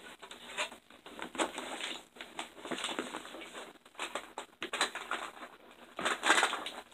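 Rummaging through a makeup bag: irregular rustling with light clicks and knocks of makeup containers, busiest near the end.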